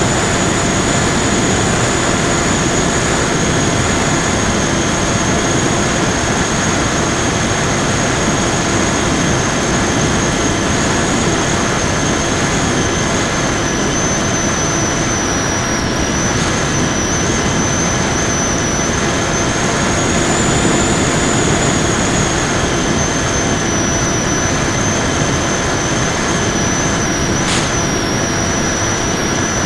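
Electric motor and propeller of an FPV Raptor model plane, heard from a camera on board, running steadily in flight with rushing air noise. Its high whine dips and rises a little in pitch as the throttle changes, with a brief click near the end.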